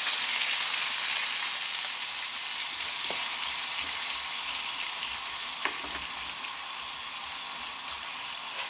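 Sliced red onions sizzling in a hot frying pan as chicken stock is poured over them and a wooden spoon stirs them: a steady hiss that eases slowly as the liquid starts to cook down, with a couple of faint knocks of the spoon.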